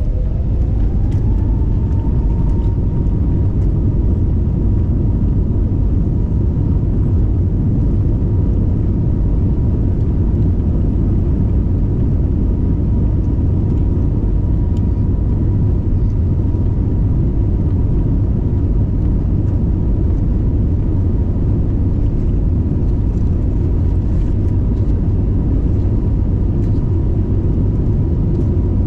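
Airbus A321neo's CFM LEAP-1A engines spooling up to takeoff thrust, heard inside the cabin: a whine rises in pitch over the first two seconds, then holds steady over a loud, constant rumble as the jet accelerates down the runway on its takeoff roll.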